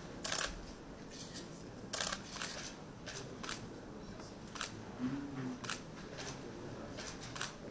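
Camera shutters clicking irregularly, about a dozen sharp clicks, some in quick pairs.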